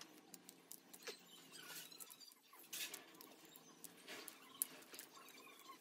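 Near silence, with faint scattered ticks and small chirps and one sharper click near the end.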